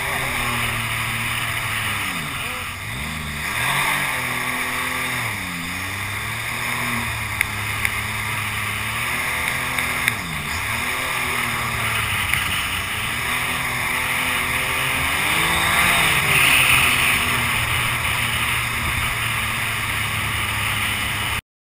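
Mini jet boat running under power on a small river: a steady engine drone over the rush of its jet wash and spray. The engine pitch dips and climbs back several times, with a few sharp ticks around the middle. The sound cuts off suddenly at the very end.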